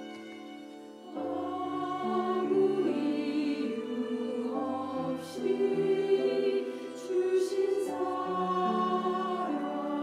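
A mixed church choir of men and women comes in about a second in over a held instrumental chord, and sings a hymn with violin accompaniment.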